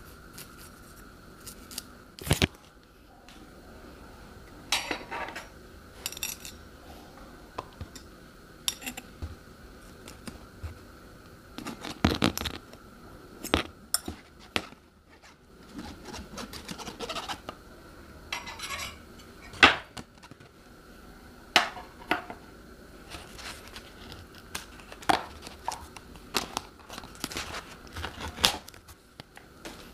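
Close-miked handling of instant noodle cups. Packets and paper lids crinkle and tear, and small utensils tap and scrape against the cups in sharp, irregular clicks.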